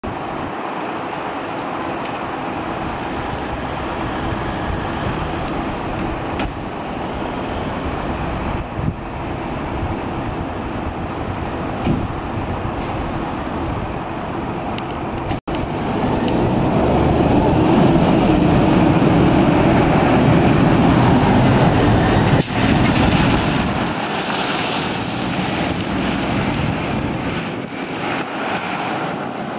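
Steady street traffic, then, after a short break in the sound about halfway, a fire engine's diesel engine grows louder as the truck pulls out and drives past. It is loudest in the middle of the second half and fades towards the end.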